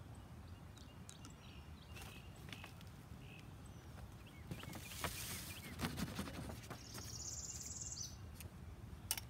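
Outdoor ambience: a steady low wind rumble with faint birdsong, small handling clicks, a brief hiss about five seconds in, and a short high trill near the end.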